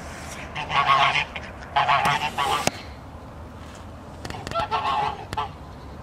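Domestic grey geese honking in three bouts of harsh calls, about one, two and five seconds in.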